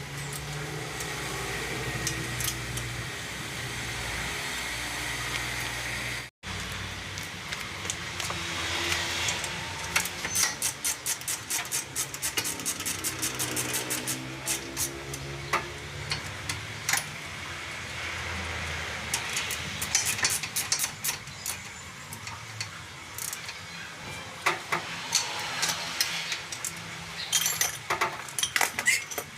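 Metal tools and parts clinking and knocking in irregular runs of sharp clicks during reassembly of a car's wheel bearing and hub. A steady low hum runs for the first six seconds, and the sound breaks off for an instant about six seconds in.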